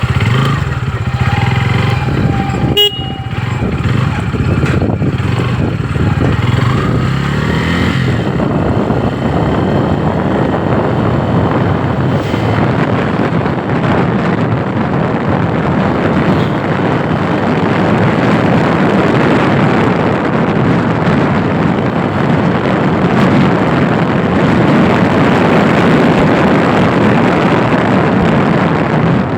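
A 160 cc motorcycle engine pulling away and rising in pitch over the first several seconds. After that, a steady loud rush of riding wind buffets the microphone while the bike runs along.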